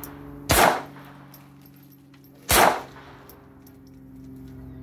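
Two handgun shots about two seconds apart, the first about half a second in, each a sharp crack followed by a brief echo.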